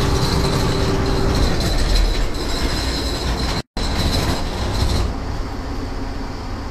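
Tour boat's inboard diesel engine running under way, a steady loud rumble with a rushing wash of noise over it. The sound drops out for a split second just past halfway, and the high hiss eases off about five seconds in.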